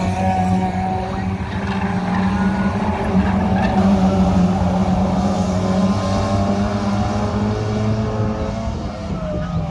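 Engines of several hatchback race cars running hard around a circuit, their pitches rising and falling as they accelerate and change gear.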